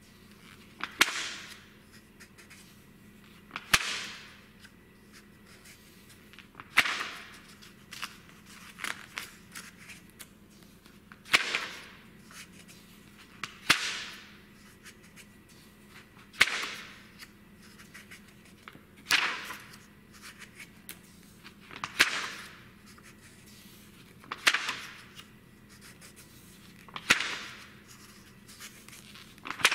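Pages of a glossy print magazine being turned by hand, one quick paper swish about every two and a half seconds, each starting sharply and fading away fast.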